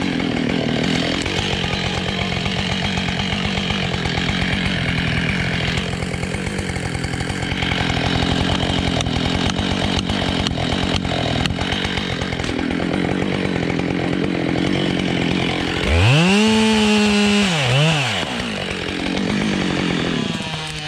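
Husqvarna 572 XPG chainsaw cutting beech under load. About sixteen seconds in it is revved freely to a high pitch, dips, revs once more, then drops back. The saw is new and not yet run in, so it sounds a little different.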